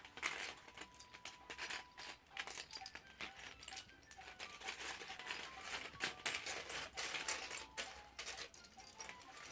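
Loose plastic Lego pieces clicking and clattering against each other as they are handled and sorted by hand, in many quick, irregular rattles.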